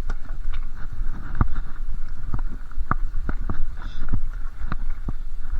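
Mountain bike rolling over a rough trail: a steady low rumble with frequent irregular knocks and rattles from the bike.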